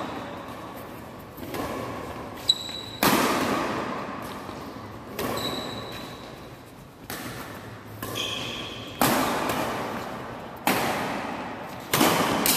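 Badminton rackets striking a shuttlecock back and forth in a fast doubles rally: a sharp pop every second or two, each echoing through the hall. A couple of short high squeaks come in between the hits.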